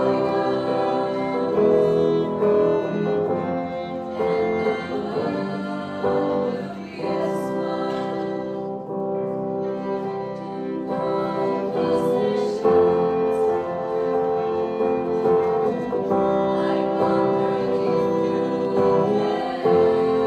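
A small band playing a song live: female voices singing together with violin, electric guitar and grand piano.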